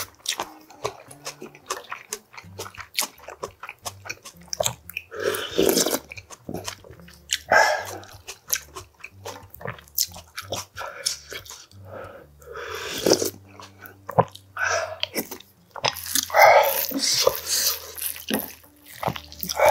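Close-up eating sounds: chewing and wet lip smacking, with several louder slurps of spicy kimchi stew broth from a spoon.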